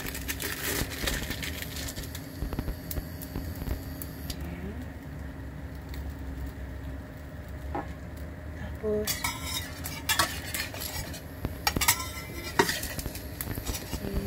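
An egg-and-bread omelette sizzling in oil in a stainless steel frying pan. Plastic cheese wrappers crinkle near the start, and in the second half a metal spatula scrapes and clinks against the pan in a few short bursts.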